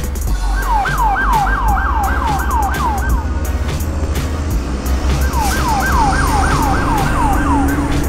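Fire engine siren: a fast falling wail, about three sweeps a second, in two runs of a few seconds each with a short gap between, over a steady low rumble.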